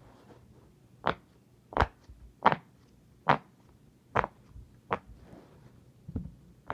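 Silicone pop it fidget toy having its bubbles pressed one after another: a string of sharp pops, about one every 0.7 seconds, with a short pause before the last two.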